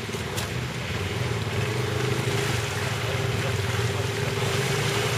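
ATV engine running steadily under load as the quad wades slowly through deep muddy water, with water churning and sloshing around it.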